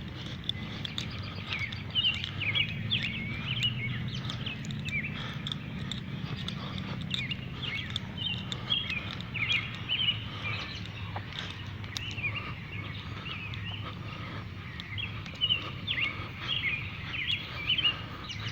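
Outdoor birds chirping in many short, quick calls, coming in clusters, over a low steady rumble.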